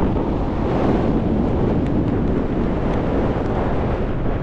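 Strong wind blowing over the camera microphone: a loud, steady rushing noise.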